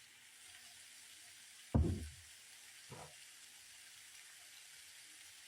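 Bell peppers and onions sizzling in a frying pan with a steady hiss. A loud knock sounds a little under two seconds in, and a lighter one about a second later.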